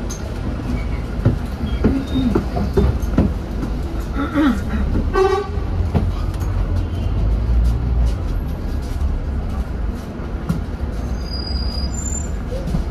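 Scania N230UD double-decker bus's diesel engine and running gear rumbling steadily as it drives, heard from inside on the upper deck. About five seconds in there is a short horn-like tone among a few brief pitched sounds.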